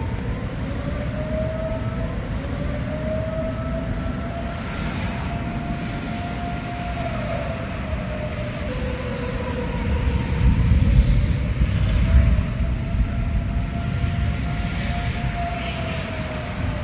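Outdoor tornado warning siren wailing: one long tone whose pitch slowly rises and falls, twice in a row. Beneath it is a steady low rumble that swells about ten seconds in.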